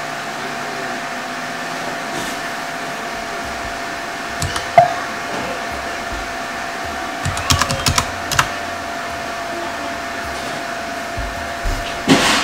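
Steady whir of a Mac Pro 5,1 tower's fans with a faint steady tone, broken by keyboard clicks while a password is typed at the login screen: one sharp click about five seconds in, a quick run of clicks around eight seconds, and another knock near the end.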